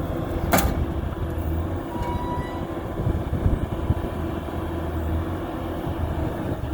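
A vehicle running with a steady low hum and a rough, rattling rumble, with a sharp knock about half a second in.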